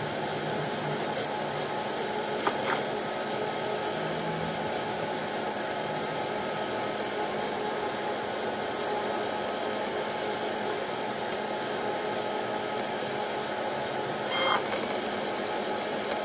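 Tevo Black Widow 3D printer printing its first layer: a steady whir from its cooling fans and stepper motors as the print head moves, with a few short low motor notes in the first seconds and a couple of brief clicks.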